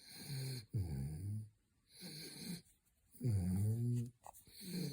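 French bulldog snoring in its sleep: about five wheezy, pitched snores in quick succession, each under a second long, several sliding down in pitch.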